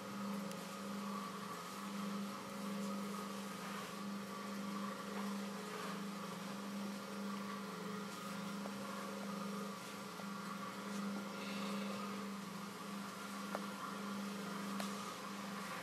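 Electric potter's wheel motor running with a steady low hum that pulses evenly, with a few light ticks over it.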